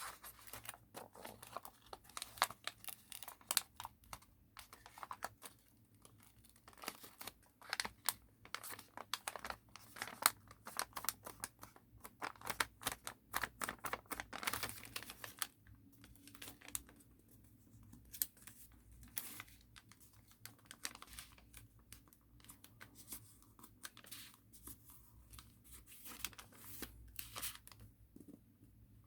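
A sheet of origami paper being handled, folded and creased by hand: crisp crinkles and short rustles, busy through the first half and sparser after about halfway.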